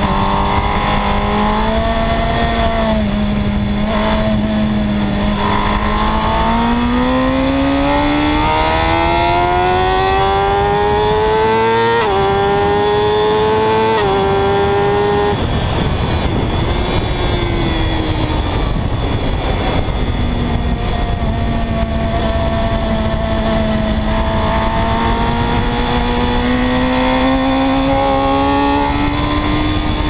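Superbike engine heard from an onboard camera: it holds steady revs through a corner, then revs climb with two quick upshifts about twelve and fourteen seconds in. A stretch of rushing noise with no clear engine note follows on the straight, then the engine note rises slowly again.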